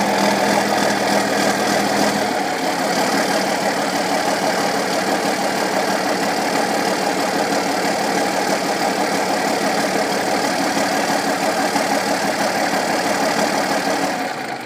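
An engine or motor running steadily. A deeper hum under it drops away about two seconds in, and the sound stops at the end.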